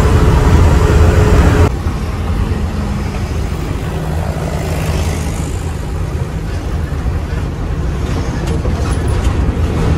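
Tata heavy truck's diesel engine and road noise heard from inside the cab while driving at speed, a steady low rumble. It drops abruptly and stays quieter about two seconds in.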